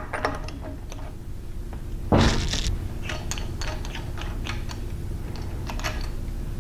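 Metal parts being handled as the contact wheel is taken off a Burr King 960 belt grinder: scattered light clicks and clinks, with one louder, longer scrape about two seconds in.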